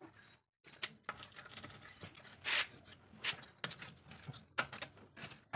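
A socket wrench working on the steel wheel's lug nuts: irregular metal clicks and scrapes, with one louder rasp about two and a half seconds in.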